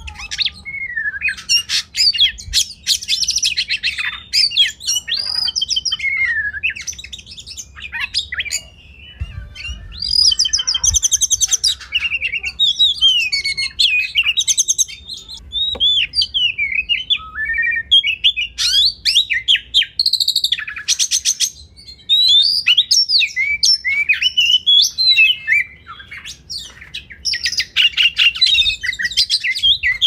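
Oriental magpie-robin singing a long, varied song of clear whistles, rising and falling glides and rapid buzzy rattles. The phrases follow one another with only short pauses.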